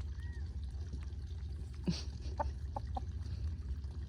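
Backyard hens giving three short, soft clucks in quick succession just past halfway, after a brief rustle, over a steady low rumble.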